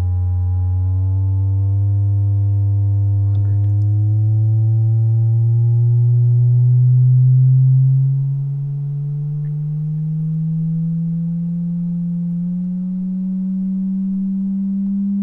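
A Bose SoundLink Micro Bluetooth speaker, opened and resealed with elastomer sealant, plays a pure sine test tone that sweeps slowly upward from about 90 to 200 hertz. It is loudest a little past halfway. This is a bass-response sweep to check where the resealed speaker cuts in and whether it shows any anomalies.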